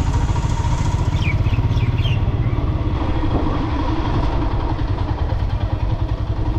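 Motorcycle engine running at low revs with an even pulsing beat as the bike rolls slowly, heard from the rider's seat. A few faint high chirps come about a second in.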